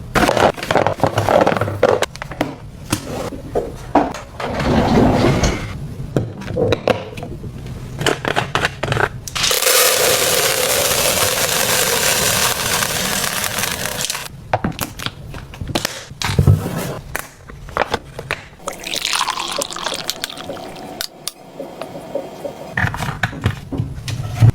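Household cleaning sounds: scattered knocks and handling of objects, then about five seconds of steady running water that stops suddenly, followed by more knocking and rubbing.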